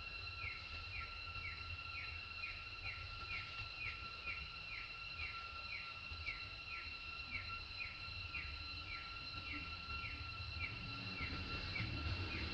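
Outdoor ambience: a short, high, falling chirp repeats about twice a second over a steady high whine, with a low rumble underneath.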